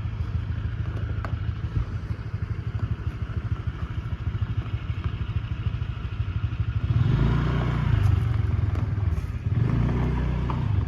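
Small motorbike or scooter engine running under way with a rapid low throb. It grows louder with more throttle about seven seconds in and again near the end.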